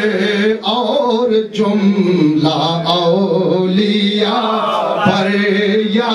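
A man chanting an Islamic devotional salam into a microphone, drawing out long held notes that bend slowly in pitch.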